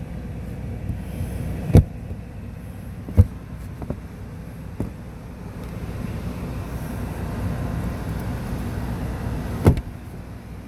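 Plastic interior trim panel being worked loose by hand: a few sharp clicks and knocks scattered across the stretch, over a steady low rumble.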